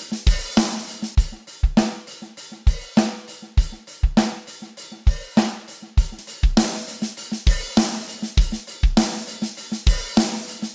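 MDrummer's sampled acoustic drum kit playing a steady groove: kick drum, snare and hi-hat with cymbals, hit after hit at an even tempo.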